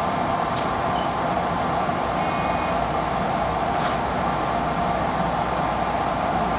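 Steady hum inside an Odakyu 1000-series electric commuter train car, with a constant mid-pitched tone and two brief sharp clicks, one under a second in and one about four seconds in.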